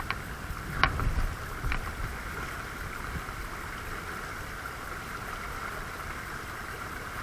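Mountain trout stream rushing steadily over a shallow riffle, with a few short sharp clicks in the first two seconds.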